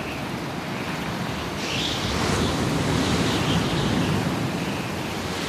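Steady rushing outdoor ambience, an even wash of noise with no distinct events, a little louder from about two seconds in.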